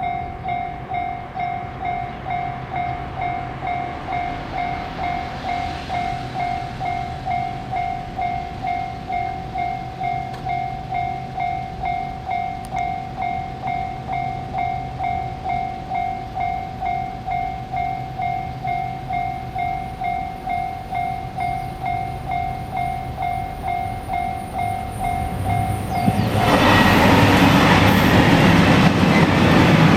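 Japanese railway level-crossing alarm bell ringing about twice a second in an even kan-kan rhythm. About 26 seconds in, a train arrives and passes the crossing, much louder than the bell.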